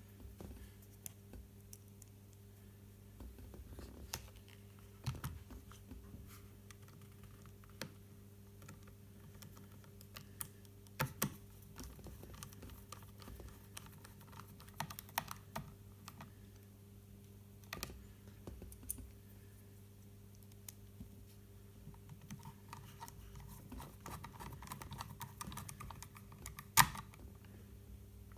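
Small irregular clicks and taps of a small screwdriver driving screws into the plastic body of a DJI Mavic Pro drone, with parts handled between them and one sharper click near the end, over a steady low hum.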